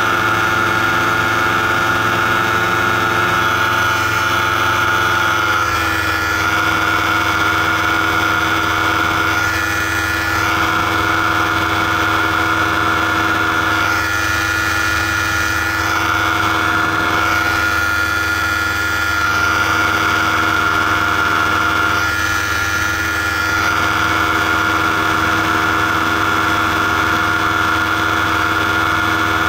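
Paramotor engine and propeller running steadily in flight, its pitch dropping a little about six seconds in and then holding.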